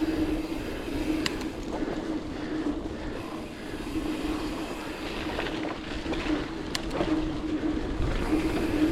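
A mountain bike riding fast over dirt singletrack: a steady rumble of knobby tyres and wind, with brief sharp clicks and rattles from the bike about a second in and again near the seventh second.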